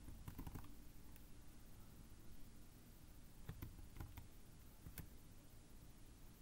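A few faint, scattered computer keyboard key presses, with near silence between them.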